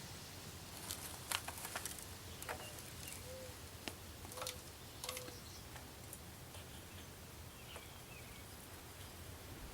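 Faint scattered clicks and crackles of hands planting a petunia into a pot of potting soil, mostly in the first half, with a few short chirps mixed in.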